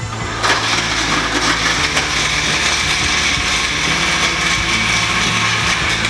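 Countertop blender running on high, blending crushed ice with peach puree and liquid into a frozen cocktail. It starts about half a second in and runs steadily.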